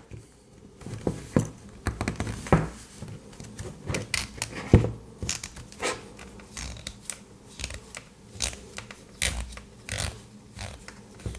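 Nylon zip tie strap being pulled back out through its head, with a needle holding the locking pawl released: irregular small plastic clicks and scrapes.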